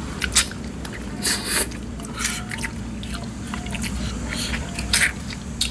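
Chicken feet being eaten: wet smacking, sucking and biting sounds come in a handful of short sharp bursts, the longest about one and a half seconds in.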